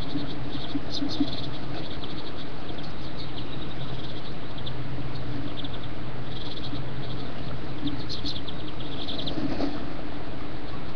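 Female great tit on her nest giving her defensive hissing display, wings and tail spread against an intruding starling: short bursts of hissing recur every second or two over a steady hiss from the nest-box webcam microphone.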